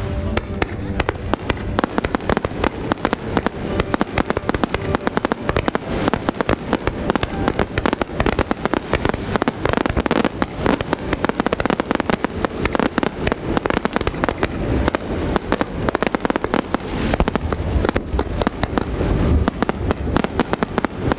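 Fireworks display: a rapid, unbroken barrage of shells bursting, with sharp bangs and crackling several times a second.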